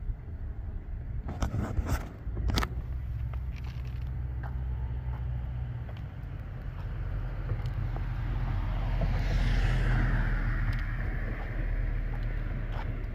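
A car passing by, its tyre noise swelling up and fading away over a few seconds in the second half, over a steady low rumble. A few sharp clicks about two seconds in.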